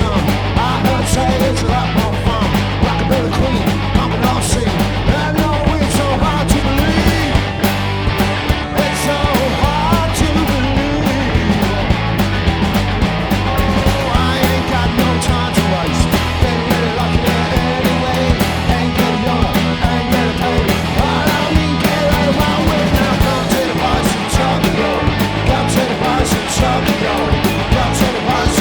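A rock band playing loudly in a punk style, with a driving drum beat, bass and a singer's voice.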